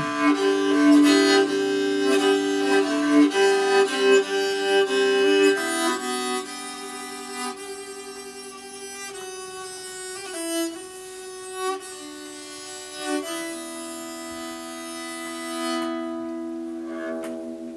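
Bowed string instrument playing a slow improvised melody of long held notes, the last note dying away near the end.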